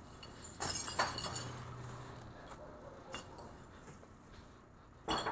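Cans and glass tossed into a garbage truck's hopper: several short clinks and knocks, with a louder crash near the end.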